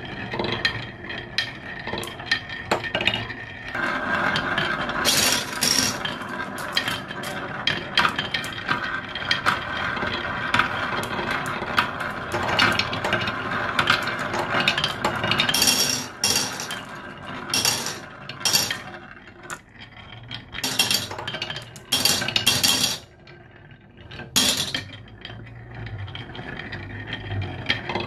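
Glass marbles rolling down a HABA wooden zigzag marble slope, a steady rumble full of small clicks as they bounce through the carved curves. Sharper clinks stand out several times, loudest in the second half.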